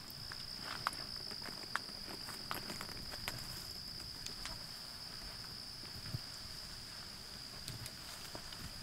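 Footsteps on leaf litter and twigs, with a few sharp snaps, over a steady high-pitched insect chorus.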